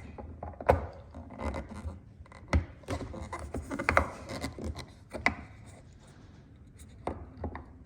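Hand-handling noise of an LED turn-signal insert being pressed into its plastic housing: irregular rubbing and scraping with a handful of sharp clicks and knocks.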